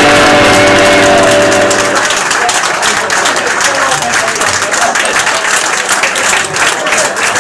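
A live rock band's final held chord rings out for about two seconds and stops, then the club audience applauds.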